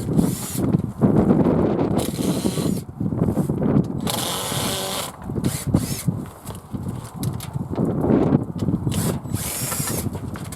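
Cordless drill-driver running in several short bursts, backing screws out of the polytunnel's timber door frame.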